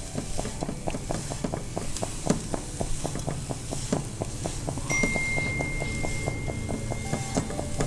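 A spatula stirring chopped radish leaves, radish and moong dal in a non-stick pan: a steady run of light clicks and taps against the pan, several a second. A faint steady high tone joins about five seconds in.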